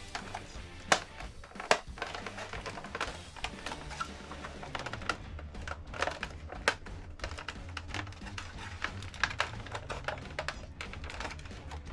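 Irregular light clicks and taps of the WPL D12's hard-plastic body kit parts being handled and fitted onto the truck, over background music.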